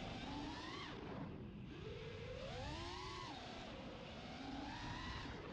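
FPV freestyle quadcopter's brushless motors and propellers whining, the pitch swooping up and down several times with the throttle, over a low rumble of wind.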